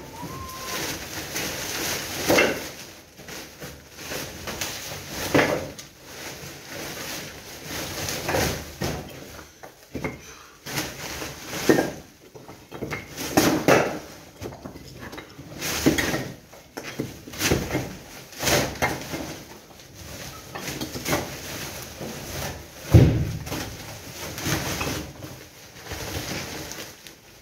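Demolition debris being loaded into woven plastic bulk bags: the bag fabric rustles and crackles while broken boards and rubble knock and clatter irregularly, with one heavier low thump late on.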